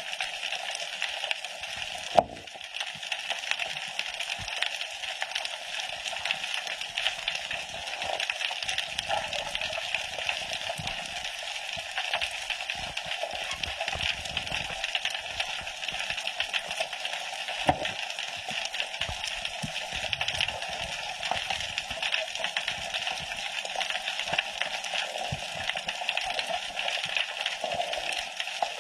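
Underwater reef ambience heard through a camera housing: a steady, dense crackling hiss of snapping shrimp. One sharp knock stands out about two seconds in.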